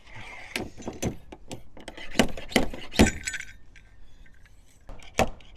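Hard pieces of a glue-pull dent repair kit clinking and clattering as they are handled, an irregular run of sharp clicks and knocks, loudest around the middle, with another sharp knock near the end.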